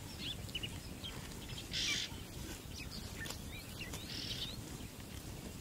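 Red-billed oxpeckers giving short hissing rasps, once about two seconds in and again just after four seconds, with scattered faint bird chirps.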